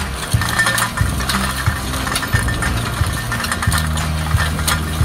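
Tractor engine running steadily while an under-row hoe's blade cuts through stony soil, with stones clicking and clinking against the steel frame many times.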